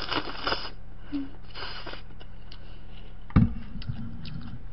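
Sips of cold broth drunk from a stainless steel bowl, with small clicks, then a low thump about three and a half seconds in as the bowl is set back down on the table.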